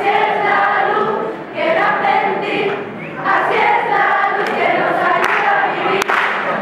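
Teenage school choir singing a Spanish Christmas carol (villancico) together, phrase by phrase with short breaths between.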